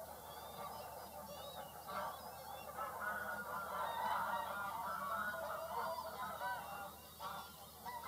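A flock of geese calling: many short honks overlapping into a dense chorus that swells about two seconds in and eases briefly near the end.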